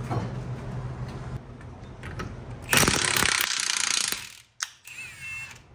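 Cordless impact wrench hammering for about a second and a half as it undoes the pinion nut on a Ford 8.8 rear axle's yoke. A click and a short high whine follow near the end.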